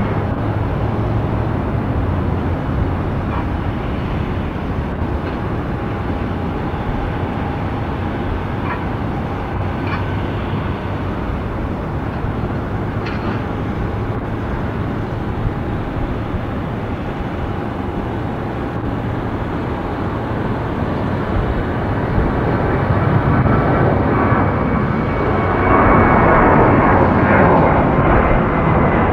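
Boeing 737-700's CFM56-7B turbofan engines at takeoff power: a steady, noisy jet rumble that grows louder over the last several seconds as the airliner rolls and climbs out, with a thin whine on top.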